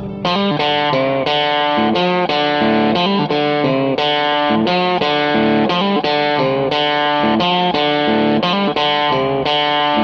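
Background music: a guitar playing a steady run of plucked notes.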